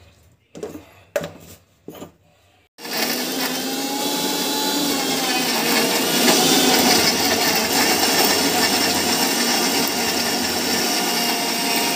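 A few knocks as the lid goes onto the jar of an Indian mixer grinder, then, about three seconds in, its motor starts and runs steadily, rising a little in pitch as it comes up to speed, grinding onion, tomato, coconut and coriander into a masala paste.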